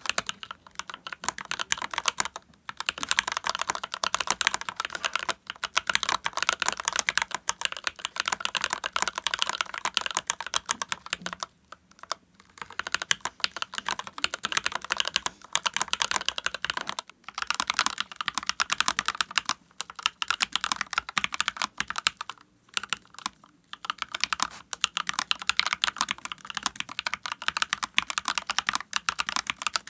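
Fast typing on a Lily58 split mechanical keyboard, with dense runs of keystrokes broken by a few short pauses.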